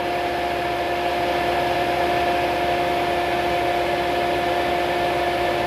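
Cooling fan of a Thermal Arc TIG welder running steadily while the machine is powered up: a constant whirring noise with a steady hum through it.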